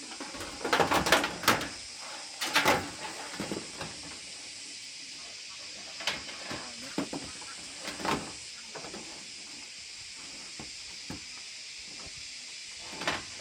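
Irregular knocks and clatters, a quick cluster about a second in and another just after two seconds, then single knocks spread out, over a steady high hiss.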